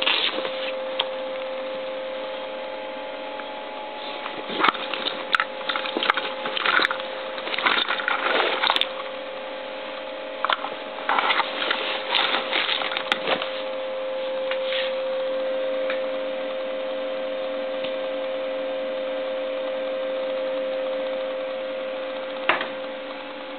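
Rustling and sharp clicks of a soft dust cover and logic-analyzer probe cables being handled, over a steady electrical hum. The handling stops a little past the middle, leaving the hum alone and slightly stronger, with one more click near the end.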